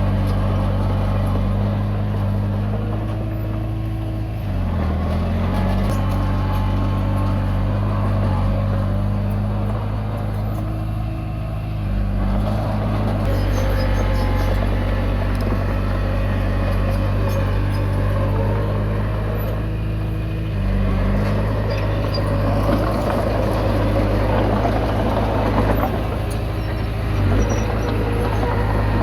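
Komatsu D20P crawler bulldozer's diesel engine running steadily, its pitch shifting about three times as the load changes, with a rattle over it that is busiest near the end.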